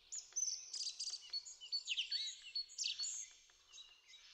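Songbirds singing, a busy mix of quick chirps and short whistled phrases that fades out after about three seconds.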